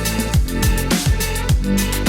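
Electronic background music with a steady kick-drum beat and heavy bass.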